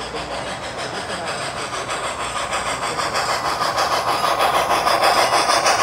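Model steam locomotive and its freight cars running along the layout track toward the microphone, a fast, even pulsing that grows louder as the train nears.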